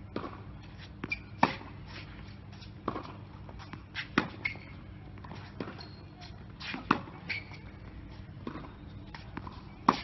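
Tennis rally on a hard court: sharp racket-on-ball hits and ball bounces about every second and a half, the loudest about every three seconds. Brief high sneaker squeaks come between the hits.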